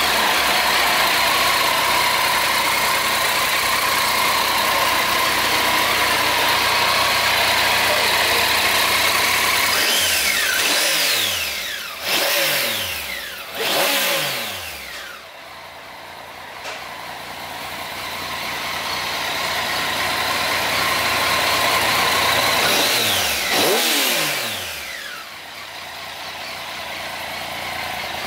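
Triumph Tiger 800 XCx's three-cylinder engine idling, revved briefly a few times around the middle and once more near the end. Each time the revs fall back to a steady idle.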